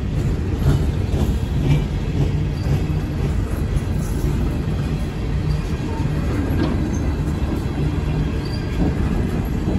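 Empty open-top coal hopper cars rolling past close by, their wheels on the rail making a steady rumble.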